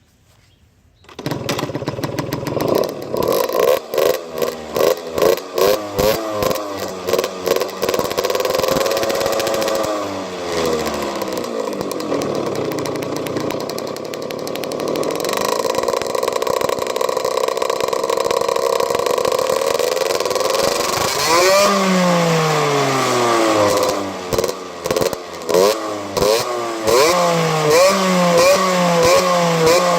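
Valenti 50 SM 50 cc supermoto engine through a full BigOne exhaust. It catches about a second in and is blipped repeatedly, each rev rising and falling quickly. Midway it is held at a slowly climbing rev for several seconds, then it is blipped again in quick succession.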